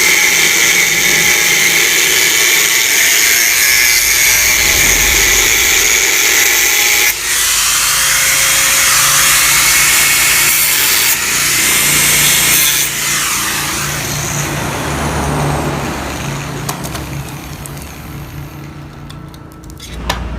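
Power tool working on the metal of a Yamaha RX-King exhaust as it is being opened up, a steady whine over dense hiss. The tone changes abruptly about seven seconds in, and after about thirteen seconds it gives way to a lower hum that fades toward the end.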